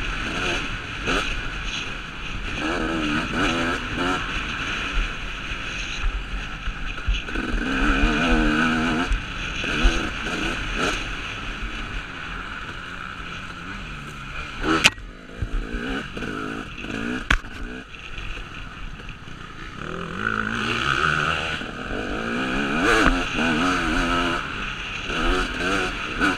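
The two-stroke engine of a KTM 250 SX motocross bike being ridden hard, its revs climbing and falling again and again as the throttle is opened and shut. It is quieter through a stretch just past the middle. Two sharp knocks come about fifteen and seventeen seconds in.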